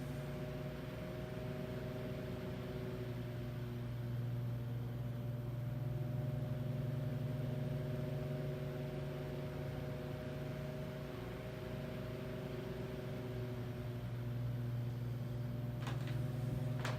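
Vintage 10-inch Toastmaster all-metal table fan running at its single speed while oscillating: a steady motor hum whose loudness swells and eases slowly. The oscillator mechanism seems to bind the motor down a little. A faint click near the end.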